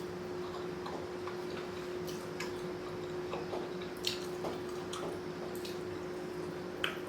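Close-miked chewing of rotisserie chicken: scattered soft, wet mouth clicks and smacks, over a steady low hum.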